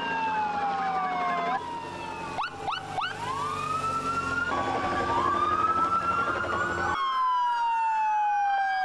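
Several police and fire vehicle sirens wailing over one another, their pitches slowly falling and rising, with a few quick upward sweeps about two and a half seconds in.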